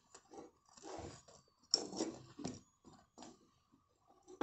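Quiet, scattered soft scrapes and taps of a metal spatula turning a jowar bhakri over a gas burner's flame, with one sharper click a little under two seconds in.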